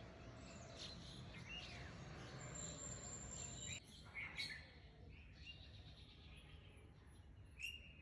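Faint sizzle of chicken nuggets deep-frying in bubbling oil, with a few short bird chirps over it, the clearest about four seconds in and near the end.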